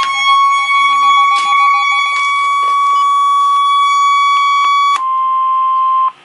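NOAA Weather Radio warning alarm tone, the steady 1050 Hz alert, played loud through a 1979 Midland weather radio's speaker. It holds one pitch and cuts off about six seconds in, with a rapid beeping sounding alongside it for the first two seconds.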